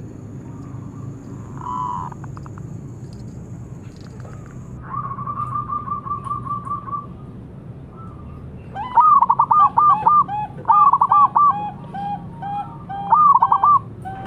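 Zebra dove (perkutut) singing: a quick run of soft, evenly spaced coo notes about five seconds in, then from about nine seconds several loud phrases of rising high coos followed by lower coo notes.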